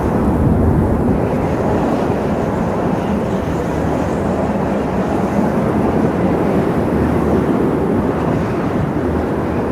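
Strong wind blowing as a steady, loud, low rumble, with no gusts or pauses.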